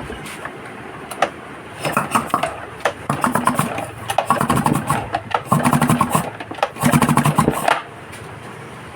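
Outboard boat engine with its cylinder head off, turned over by hand about four times in a row, each turn a short rattling whir that works the freshly poured oil around the cylinder.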